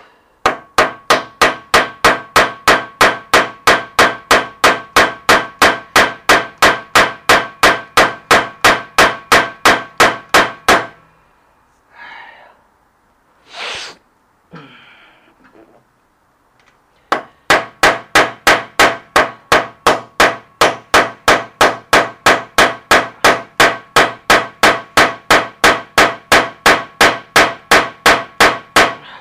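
Hammer blows driving a new bearing into a spin bike's bearing seat, struck through an old bearing used as a driver. The metal rings with each blow, about two blows a second in a steady run, with a pause of several seconds in the middle before the hammering resumes. The bearing is not yet fully seated.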